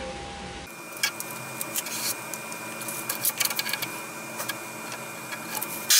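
Scattered light clicks and taps from a tape measure and pencil being handled while a board is marked for cutting, over a faint steady hum.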